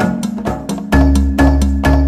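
Background music with a quick, steady percussive beat over held bass notes, about four to five strikes a second; the last strike falls near the end.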